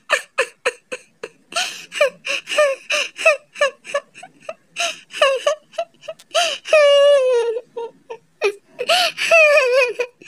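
A child crying: quick, high-pitched sobbing catches, broken by two longer, falling wails, about six and a half seconds in and again about nine seconds in.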